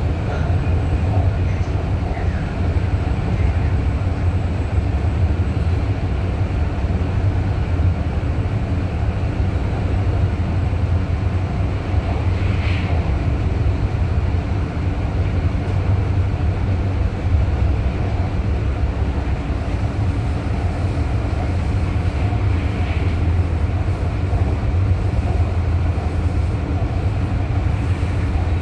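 Cabin noise of a RapidKL MRT Kajang Line metro train running between stations, heard from inside the passenger car: a steady low rumble and hum of the wheels on the rails and the running gear.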